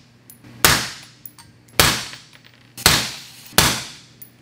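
Four suppressed 5.56 rifle shots from a Daniel Defense MK18 with a 10.5-inch barrel, fitted with an AB Raptor 2 suppressor, fired about a second apart. Each shot rings off for about half a second, with small faint clicks between the shots.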